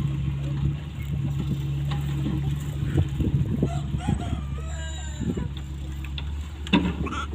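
Excavator's diesel engine running steadily, with sharp knocks about three seconds in and again near the end. A wavering call that rises and falls in pitch comes in about four seconds in.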